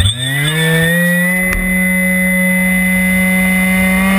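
Electric motor and propeller of an RC plane heard from on board, spinning up at launch: a whine that climbs in pitch over the first second, then holds steady, and steps up in pitch again near the end as throttle is added. A single short click about one and a half seconds in.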